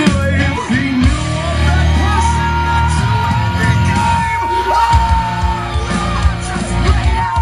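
Loud music with a steady bass and a yelled, sung vocal that holds one long high note from about two seconds in until nearly six seconds.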